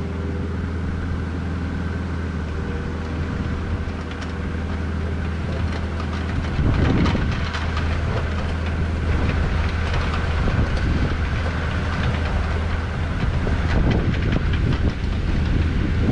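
Engine of a heavy grading machine running steadily; about six and a half seconds in, a clanking rattle joins it as the machine starts working.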